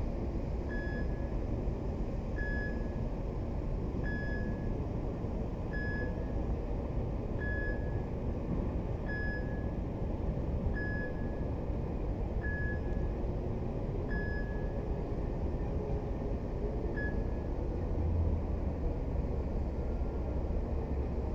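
An electronic warning beeper sounding about ten short beeps of one pitch, one every second and a half or so, which stop about three quarters of the way through. Under it runs a steady low rumble that grows a little louder near the end.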